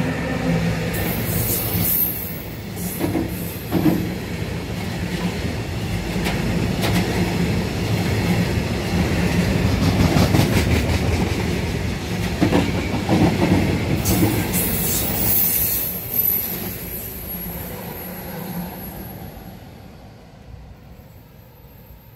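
Freight train of silo tank wagons, hauled by a class 270 electric locomotive, passing close by: wheels clattering over rail joints with a steady rumble. High wheel squeals come about a second in and again around fourteen seconds in. The sound fades away near the end as the train recedes.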